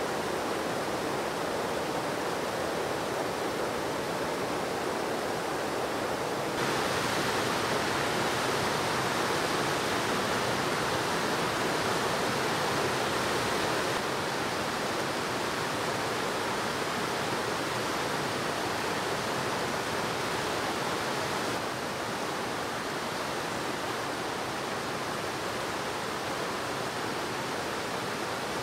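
River water pouring over a low weir and rushing through whitewater rapids: a steady rush of water, a little louder from about six seconds in and slightly quieter again in the second half.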